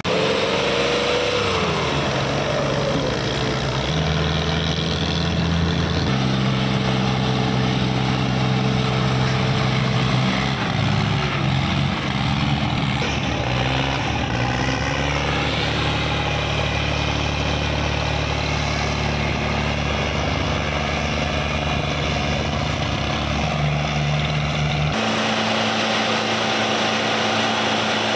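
Diesel tractor engines labouring at full load in a tug-of-war, a loud steady drone whose pitch shifts in steps as the pull goes on. About 25 seconds in the engine sound changes abruptly to a different, steadier note.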